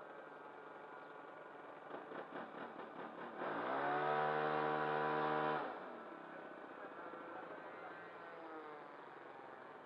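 RC model airplane motor running on the ground: a few quick throttle blips, then a run-up that rises in pitch to a loud steady full-throttle tone for about two seconds before it is throttled back down.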